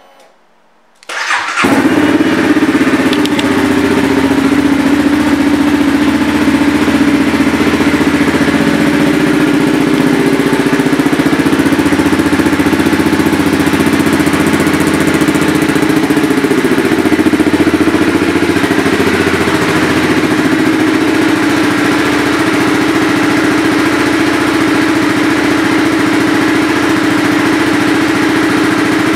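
2020 Honda CBR300R's single-cylinder engine starting about a second in, then idling steadily through an aftermarket exhaust.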